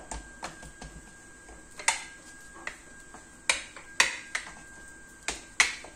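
Plastic rolling pin knocking and clacking against a plastic cutting board as a ball of dough is rolled out into a thin round. The knocks come irregularly, sparse at first and louder and more frequent in the second half.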